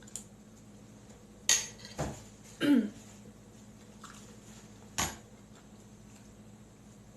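Cutlery and dishes clinking: a few sharp knocks close together, then one more a couple of seconds later.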